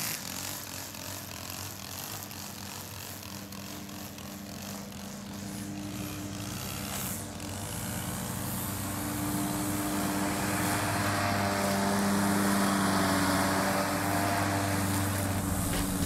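Red riding lawn mower's engine running steadily, getting louder through the second half as the mower comes closer.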